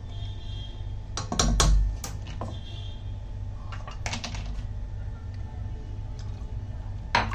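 A spoon knocking and scraping against a mixer-grinder jar while thick green chilli-garlic paste is got out of it: a quick clatter of knocks about a second in, another around four seconds, and one more near the end, over a steady low hum.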